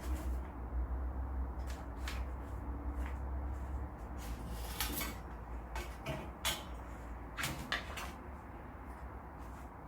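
Scattered light knocks and rustles of objects being handled, over a steady low hum that stops about four seconds in.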